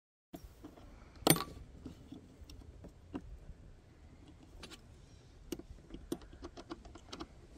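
Small metal clicks and rattles of hand-fitted parts: a sawmill blade lube system's cable and fittings being attached to the steel frame, with one louder click about a second in, over a low steady rumble.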